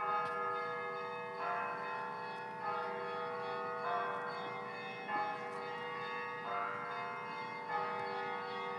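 Russian church bells ringing: a cluster of bells struck together about every second and a quarter, each strike ringing on over a steady hum from a lower bell.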